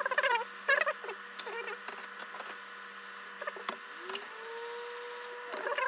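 Small electric motor spinning up, its pitch rising then holding steady from about two-thirds of the way in, with light clicks and taps of tools handled beforehand.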